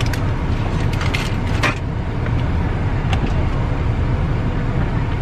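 Car running, a steady low rumble heard from inside the cabin, with a few brief clicks and rustles between about one and three seconds in.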